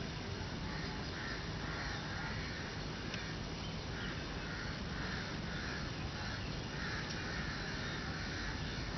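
Birds giving a long run of harsh, repeated calls, roughly two a second, over a steady low background rumble.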